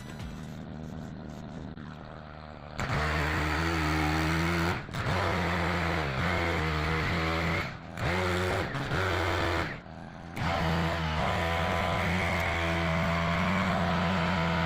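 Chainsaw engine running quietly, then at high throttle from about three seconds in, a steady loud drone that drops off briefly three times, as when cutting into wood.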